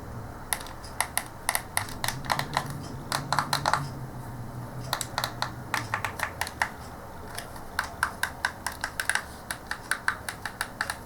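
Buttons on a Polaroid TV remote control being pressed over and over, giving quick runs of sharp clicks with a short pause about four seconds in.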